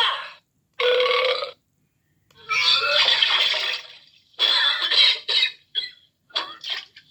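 Mini handheld sound effects machine playing short recorded sound effects through its small speaker, one after another, each stopping abruptly with brief gaps between them.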